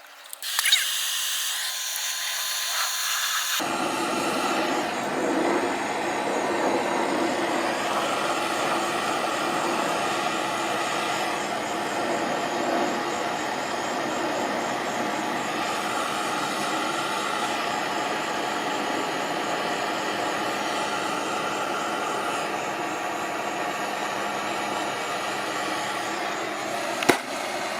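Propane torch: a high hiss for the first few seconds, then a steady rushing flame noise from about three and a half seconds in as the torch burns, heating a copper pipe joint for soldering. A single sharp click near the end.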